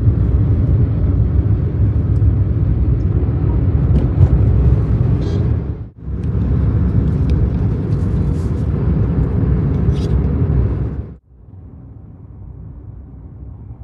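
Steady low rumble of a moving vehicle's noise, heard in clips joined by abrupt cuts; after about 11 seconds it drops to a much quieter, faint hum.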